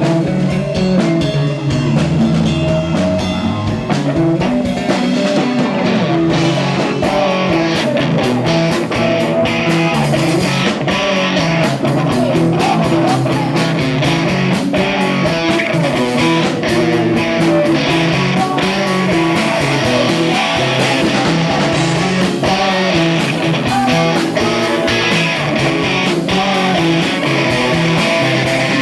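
Rock band playing loudly, with electric guitar, bass and drum kit.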